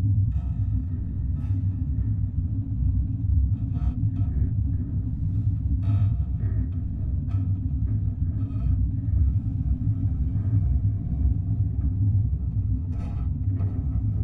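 Steady low rumbling drone, with faint scattered crackles above it.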